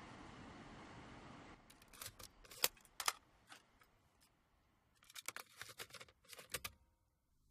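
A steady hiss, then sharp plastic clicks and clunks from a car stereo's cassette deck as a cassette tape is handled and loaded, in two bursts a few seconds apart.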